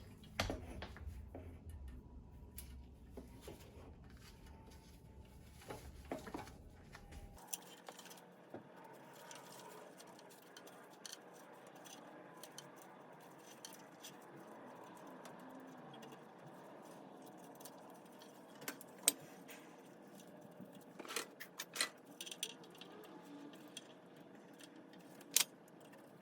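Light metallic clicks and clinks of small parts and tools being handled while a new power cord is fitted into an espresso machine, with a few sharper clicks in the second half.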